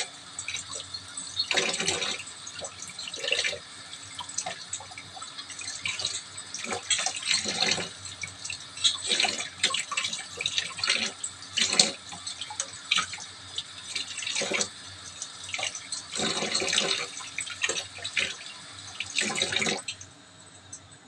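Kitchen tap running into a sink, with irregular splashing as something is rinsed under the stream. The water shuts off shortly before the end.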